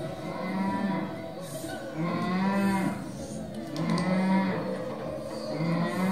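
A man's voice making long, low, drawn-out vocal tones, four in a row, each held for just under a second with short gaps between, the pitch bending within each.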